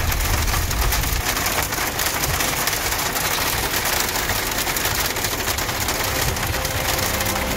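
Heavy rain pelting the roof and windshield of a Jeep, heard from inside the cabin as a dense patter of drops over the low rumble of the moving vehicle.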